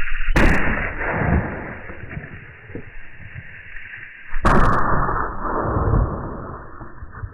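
.380 ACP pistol firing Hornady Critical Defense rounds into water jugs: two sharp shots about four seconds apart, each followed by a long ringing tail.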